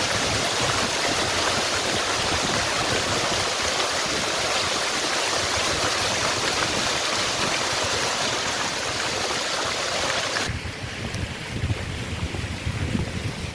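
Steady rush of running water that cuts off abruptly about ten seconds in. Gusty wind rumble on the microphone follows.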